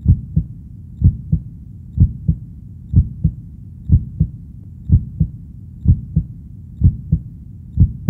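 Heartbeat as picked up by a digital stethoscope: a steady lub-dub, two low thuds per beat with the first the stronger, at about 65 beats a minute.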